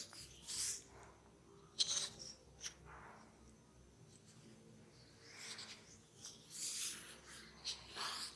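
Hands massaging a person's head, fingers rubbing through hair and over skin in irregular strokes, with one sharp click a little under two seconds in.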